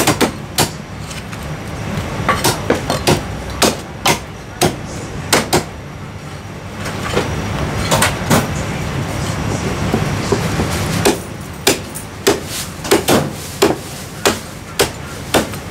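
Chinese cleaver chopping marinated goose on a thick round wooden chopping block: a string of sharp chops, often in quick runs of three or four, with a short lull about a third of the way through. A low steady hum runs underneath.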